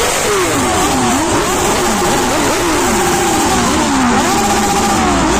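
Several superbike engines revved at a standstill, the revs rising and falling over and over, with more than one engine overlapping.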